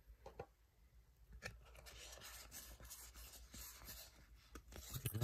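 Faint rubbing and light ticks of Yu-Gi-Oh! trading cards being slid and shuffled through by hand, a little louder near the end.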